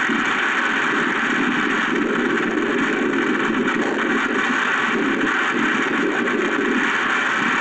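Storm wind and heavy rain: a steady rushing noise that swells slightly in the middle.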